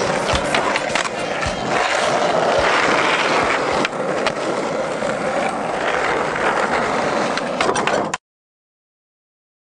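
Skateboard grinding along a metal rail and its wheels rolling on concrete, with a few sharp clacks. The sound cuts off suddenly to silence about eight seconds in.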